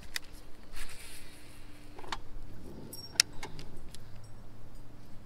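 Small clicks and rattles of fishing tackle being handled: a baitcasting reel and the lure on its line. The loudest is one sharp click a little past the middle.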